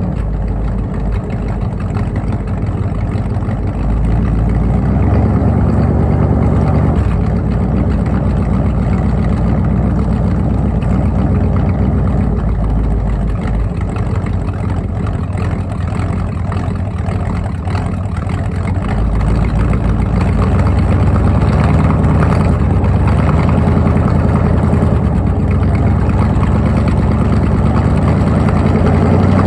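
Ford 302 small-block V8 idling through its exhaust while still cold and warming up, the idle shifting a few times and getting a little louder about two-thirds of the way through.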